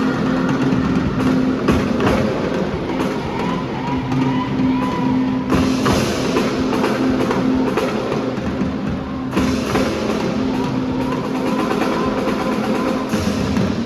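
Marching band playing: brass holding a sustained note over a drumline's rapid percussion. The full ensemble grows brighter and fuller about five and a half seconds in and again near the end.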